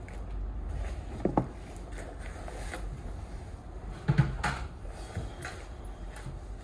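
Handling noises in a small room as a hi-vis vest is put on and a hard hat picked up: clothing rustles and small clicks, with two sharper knocks, the first about a second in and the louder about four seconds in, over a steady low rumble.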